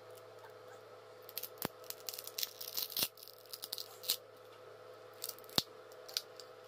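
A Vivo Y81i smartphone being prised apart by hand: an irregular run of crackling and tearing as adhesive and plastic give way, with sharp snaps about one and a half, three and five and a half seconds in.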